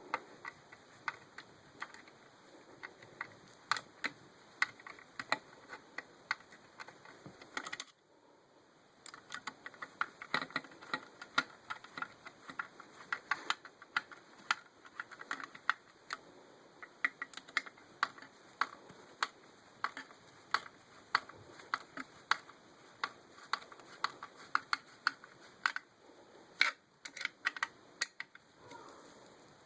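Screwdriver driving four screws into a TV stand's mount bracket: a long run of small, sharp clicks and ticks, several a second, with a short break about eight seconds in.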